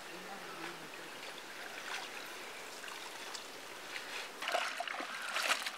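Water pouring from a hand pump's spout into a steel pot of wet leafy greens, with splashing as handfuls of leaves are lifted and dropped back in. The splashing grows louder about four and a half seconds in.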